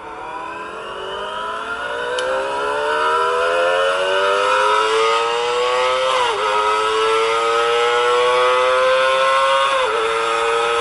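Kawasaki Ninja ZX-25R's 250cc inline-four engine revving very high, its pitch climbing steadily, with brief dips about six seconds in and near the end. Played back through a phone speaker.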